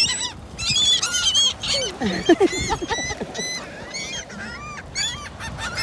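Seagulls squabbling, giving a dense run of short, quickly repeated harsh calls over one another.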